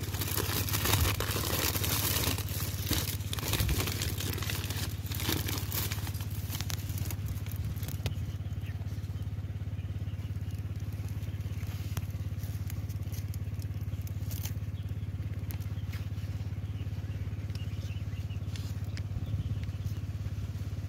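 Crinkling and rustling of a white paper fruit bag being handled around wax apples on the branch, dense for the first several seconds and then only occasional rustles. A steady low hum runs underneath throughout.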